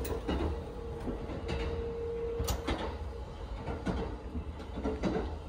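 Cabin noise of the Kintetsu Aoniyoshi excursion train running: a steady low rumble with scattered knocks and rattles. A faint steady hum runs for the first two and a half seconds and ends at a sharp click.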